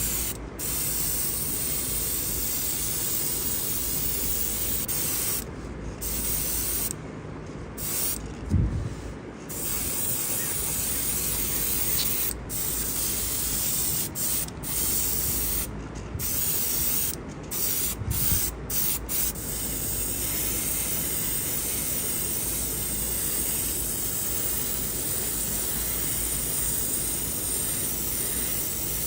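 Paint spraying onto a diecast model with a steady hiss. The spray stops and starts several times in short breaks between about five and nineteen seconds in. A dull bump about eight seconds in is the loudest sound, with a softer one near eighteen seconds.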